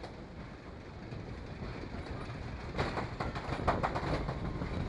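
Wooden roller coaster train rolling along its track out of the station, a steady low rumble of the wheels with a run of clacks and knocks about three seconds in.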